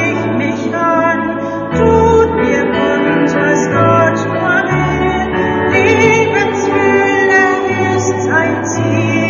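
Choir singing a slow song with instrumental accompaniment, its bass notes changing about once a second.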